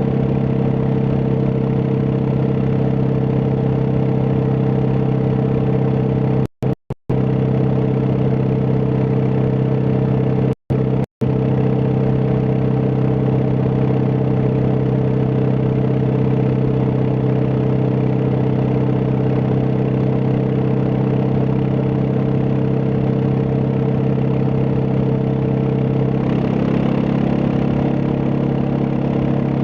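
Suzuki DR650's single-cylinder engine running steadily at an even pitch, shifting slightly near the end. The sound cuts out completely twice for a fraction of a second, about a quarter and a third of the way in.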